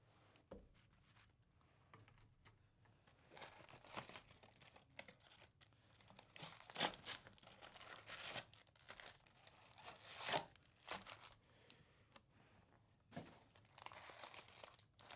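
Faint tearing and crinkling of packaging as a Topps baseball trading-card jumbo box is opened and its foil card packs are pulled out and handled: a scatter of short rustles, the loudest about seven and ten seconds in.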